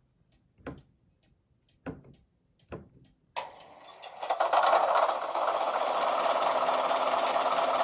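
Rapido 44-tonner model locomotive's sound decoder playing its diesel prime mover through the model's small speaker: a few sharp clicks, then the engine sound starts suddenly about three and a half seconds in, swells a second later and settles into a steady, loud run.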